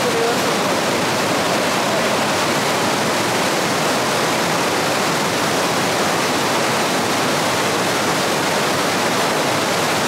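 Fast mountain river rushing over boulders in white-water rapids: a loud, steady wash of water noise without a break.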